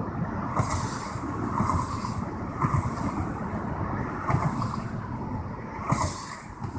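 Wind buffeting the microphone with a low rumble, and short hissy surges about once a second.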